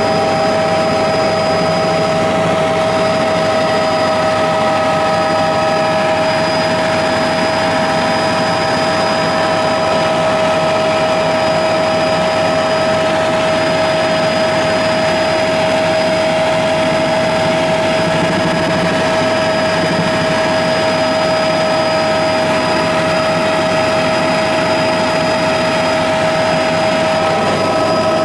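Steady engine and rotor noise heard from on board a helicopter in flight: an even rushing hum with a constant high whine that does not change.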